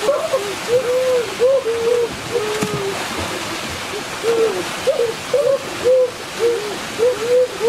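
Short hooting calls, each rising then falling, repeated about two a second with a brief pause midway, over the steady rush of a small waterfall.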